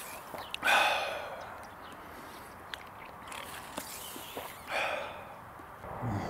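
A man drinking from a plastic cycling water bottle: small gulping and swallowing clicks, with a loud breathy exhale about a second in and another just before five seconds.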